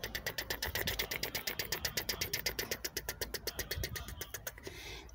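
Fingers scratching rapidly through a cat's fur on its lower back and tail base: a fast, even rasping of about a dozen strokes a second that fades out near the end.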